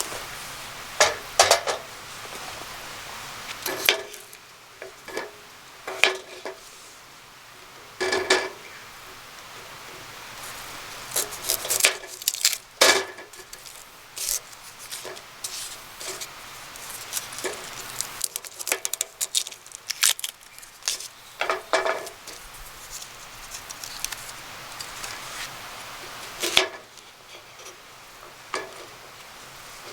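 Irregular clinks and knocks of camp cookware and utensils being handled, over a steady low background.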